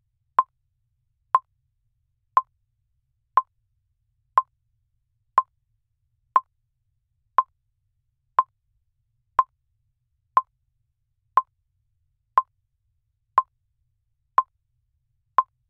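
Countdown timer ticking: one short, sharp, mid-pitched electronic tick every second, evenly spaced and all the same.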